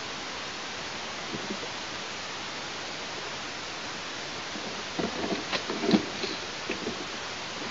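Steady hiss, then about five seconds in a short burst of rustling and knocking, loudest just before six seconds, as an eastern imperial eagle leaves its perch and shakes the branches.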